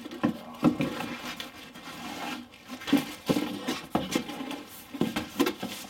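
Large cardboard panels being lifted and slid out of a shipping box: irregular scraping, rustling and knocks of cardboard against cardboard.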